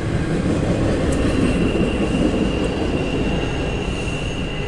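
Freight train rolling along the rails with a steady rumble of wheels, and a thin, steady, high-pitched wheel squeal that comes in about a second in and holds.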